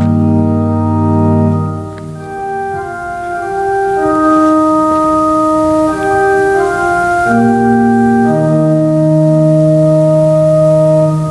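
Organ holding the hymn's final chord for about two seconds, then playing a slow series of long held chords without singing.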